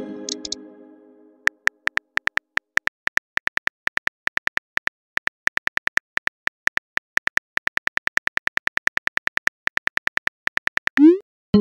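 Phone-keyboard typing sound effects from a texting app: a rapid run of short clicks, about six a second with brief pauses, as a message is typed out. It opens on the fading ring of a message chime, and near the end a short rising swoosh and a new chime mark a message being sent.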